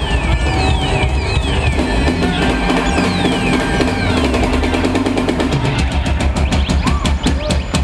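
Live funk band playing loud, with a full drum kit driving it. From about five seconds in, the drums break into a run of sharp hits that gets faster and faster.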